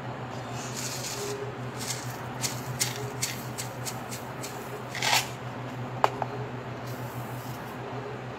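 Light taps and rustling as a cup is knocked out over a metal mesh strainer of dark leaves, with one sharp metallic clink about six seconds in, over a steady low hum.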